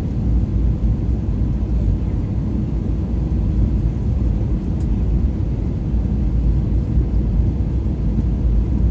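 Airliner cabin noise on approach to landing: a steady low rumble of engines and airflow, with a faint steady tone over it.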